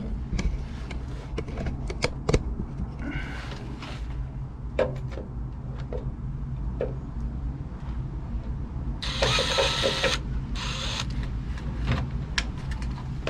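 Electric drill running slowly through thick steel plate: a steady motor hum with scattered clicks, and two short hissing bursts near the end.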